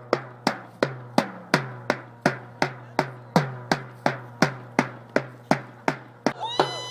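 A drum beaten in a steady, even rhythm of about three beats a second, each stroke sharp with a short low ring. Near the end a high tone with wavering pitch joins in.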